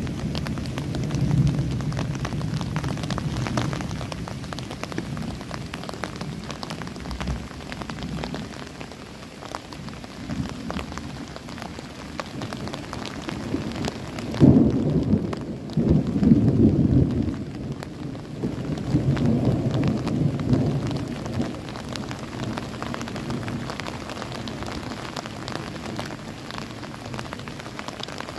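Steady rain patter with thunder rumbling low underneath. The loudest rumbles come in several waves a little past the middle.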